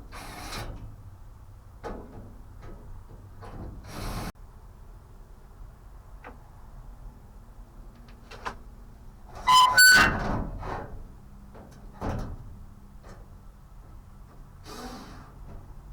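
Scattered knocks and taps from handling a sheet-metal panel, over a faint steady hum, with one loud, brief metallic squeak and clatter about ten seconds in.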